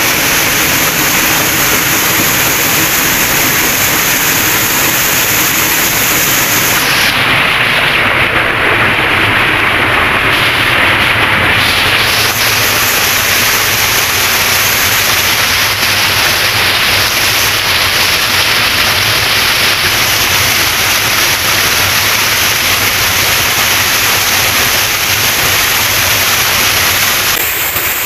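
Small waterfall pouring onto rocks and into a pool: a loud, steady rush of falling water. The high hiss softens for a few seconds about a third of the way in.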